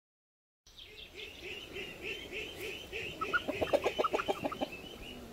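Hens clucking in a steady run of short repeated calls, with a quicker, louder string of clucks lasting about a second near the middle.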